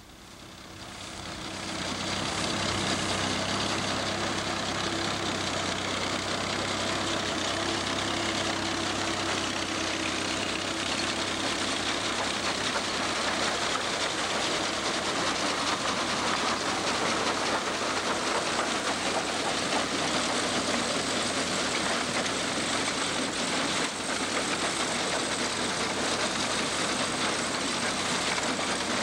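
Tractor engine running steadily as it pulls a grain binder cutting wheat, with the binder's reel, knife and canvases clattering close by. The sound swells over the first two seconds as the machine comes near, then stays steady.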